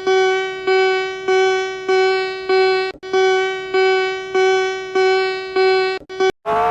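Electronic emergency-alert alarm tone: a single bell-like note repeating about every 0.6 s, each strike fading away before the next. It cuts off near the end, and a different tone with a rising pitch starts.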